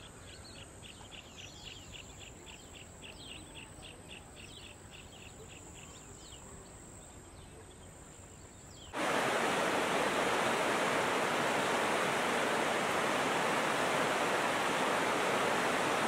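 A bird calls a quick run of short repeated notes, about four a second, over a steady high whine. About nine seconds in this gives way abruptly to the loud, steady rush of a fast-flowing whitewater river.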